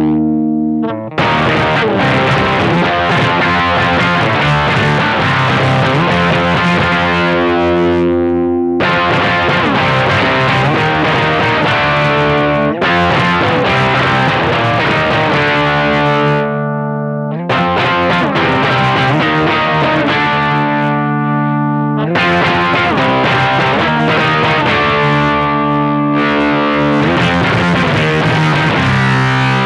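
Electric guitar played through a Mosky BC108 Fuzz Face clone pedal: distorted fuzz chords, each struck and left to ring for about four seconds. The pedal has been repaired by swapping a resistor for a 10K trimmer turned to its lowest resistance, and the fuzz is sounding as intended.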